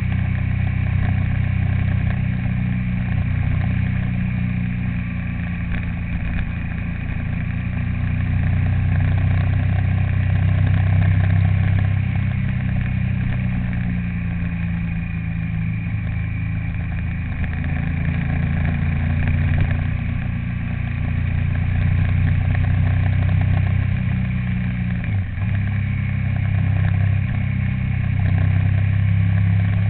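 A vehicle engine running steadily while under way, its pitch rising and falling slowly with speed.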